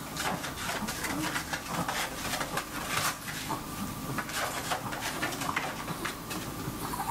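A Maltese dog's paws on disposable pee pads over a plastic tray: an irregular run of claw clicks and pad crinkles, several a second, as it circles before squatting to pee.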